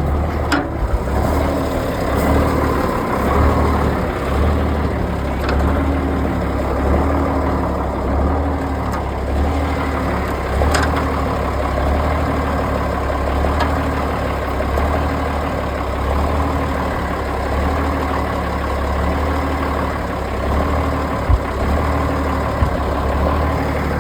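A 1973 M35A2 deuce-and-a-half's turbocharged six-cylinder multifuel engine idling steadily through its factory straight-piped exhaust, which has no muffler. A few sharp clicks sound over it.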